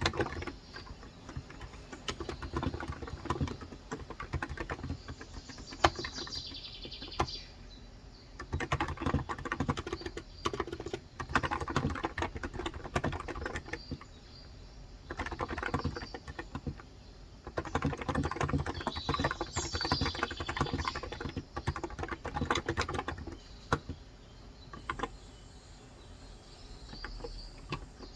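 Typing on a Cox Endeavor electro-capacitive (Topre-style) 35 g tenkeyless keyboard, several runs of quick keystrokes with short pauses between them. Birds chirp briefly twice in the background.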